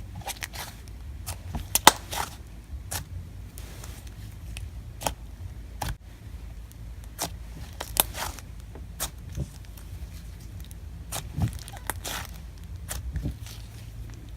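Hands playing with a clay butter slime with foam beads: irregular sticky clicks and pops as it is squished and spread, with sharper pops about two and eight seconds in.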